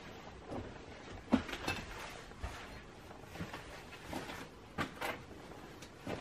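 Scattered light knocks and creaks from people moving about inside an empty railway carriage, the loudest knock about a second and a half in.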